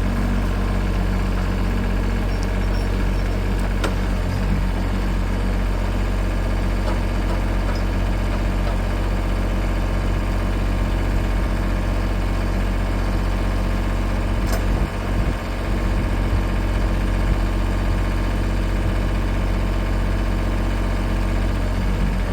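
Engine running steadily at an even idle, with a brief click and a short dip in level about fifteen seconds in.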